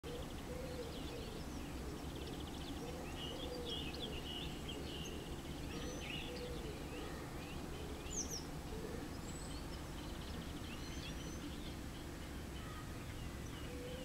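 Small songbirds chirping, with short high calls and a few quick trills scattered through, over a steady low background rumble.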